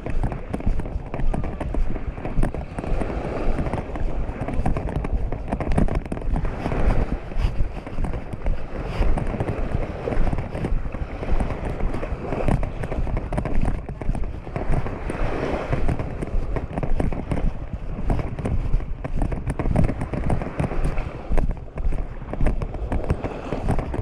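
Wind buffeting the microphone, with small waves washing onto the sand every few seconds.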